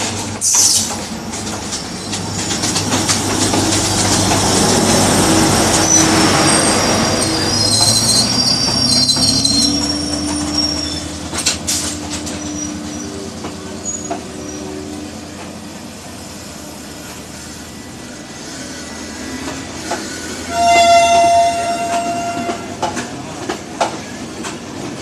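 Sri Lanka Railways diesel multiple unit rolling slowly past close alongside on the next track: steady diesel engine drone and wheel-on-rail noise, with high wheel squeals about eight to eleven seconds in. Near the end a train horn sounds once for about two seconds.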